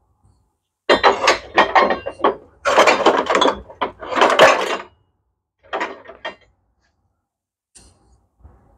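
Clatter of workshop hardware and small metal parts being handled and rummaged through, in several bursts over the first five seconds and a shorter one about six seconds in.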